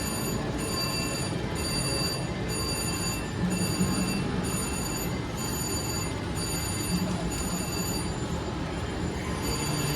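Casino slot machine playing its electronic bell-like chime, a high ringing tone that pulses on and off about once a second during the reel spins, over the steady hum and chatter of the casino floor.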